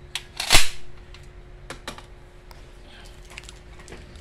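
C15A spring airsoft pistol's magazine being pushed into the grip, seating with one loud sharp snap about half a second in, followed by several light clicks of the pistol being handled.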